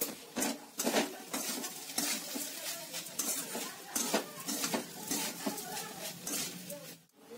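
Spatula scraping and knocking against a metal kadai while stirring a thick vegetable-and-paneer filling, in a run of irregular strokes that stops shortly before the end.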